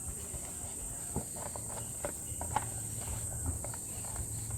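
Small irregular clicks and taps of plastic clips being pried and released on a car instrument cluster's housing, over a steady high-pitched drone.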